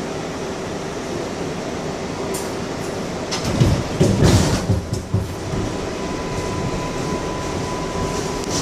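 An R142A subway train pulling out of a station, heard from inside the car. There is a steady rumble, then a burst of knocks and jolts around the middle as the car gets under way, and after that a thin steady whine from the traction motors.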